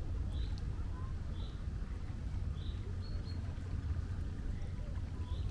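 Seashore ambience: a steady low rumble of sea and wind, with short high bird calls repeating about once a second.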